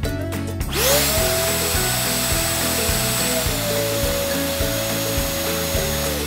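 KHIND VC3668 wet & dry vacuum motor switched on from the handle button, spinning up with a rising whine and running at high speed. About halfway through it drops to low speed with a slightly lower whine. It is switched off at the end and its whine falls away.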